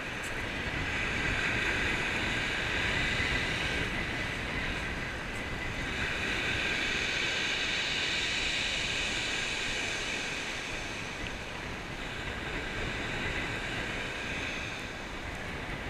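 Strong wind buffeting the microphone over surf washing on a shingle beach, a steady rushing that swells and eases in gusts.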